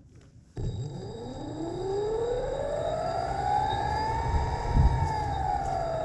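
Drive motor of a wire-suspended camera rig starting with a sudden rumble about half a second in, its whine rising in pitch as it speeds up along the wire, then falling away.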